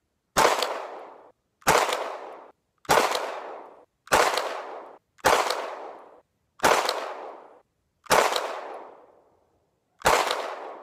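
Eight 9mm pistol shots from a Hi-Point C9, fired at a steady pace of about one every second and a bit, with a longer pause before the last, each crack trailing off over about a second. The pistol cycles through them without a jam.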